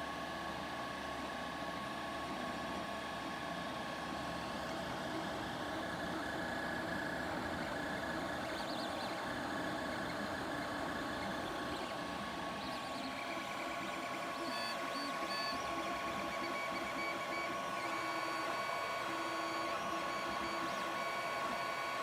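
Creality Ender-3 3D printer running a print: a steady hum from its cooling fans, with the stepper motors' whine shifting in pitch as the print head moves.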